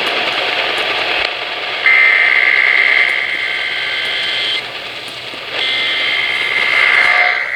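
Emergency Alert System header data bursts played over a radio: harsh, buzzy two-tone bursts, one starting about two seconds in and lasting nearly three seconds, then a second after a one-second pause, over steady radio hiss. These are the coded opening of an EAS test.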